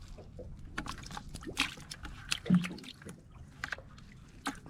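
Scattered sharp clicks and light taps, with a little trickling water, from handling a wet cast net and its catch of prawns.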